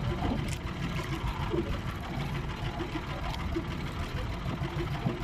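Small boat engine of a motorized outrigger fishing boat running steadily, a low mechanical rumble.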